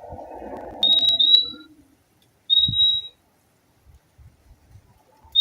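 Purple-throated euphonia (fim-fim) calling with high, clear whistled notes: a quick pair about a second in, then a single note about a second and a half later.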